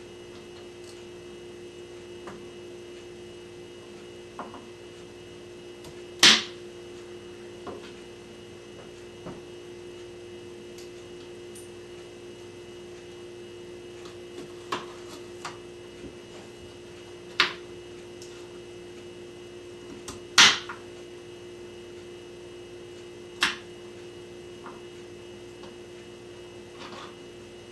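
Knife chopping vegetables on a cutting board: single sharp chops several seconds apart, over a steady hum.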